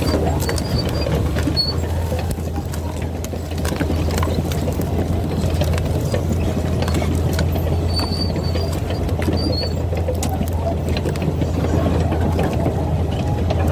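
Caterpillar D8 bulldozer at work, its diesel engine running with a steady low drone and scattered clicks throughout.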